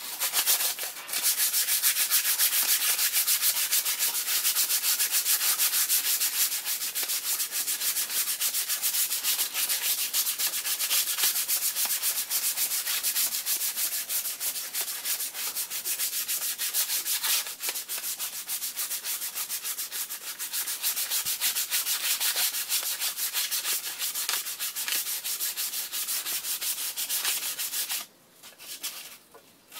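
Sandpaper rubbed by hand in rapid short strokes against the flywheel of a small engine-pump engine, a continuous scratchy hiss that stops abruptly near the end.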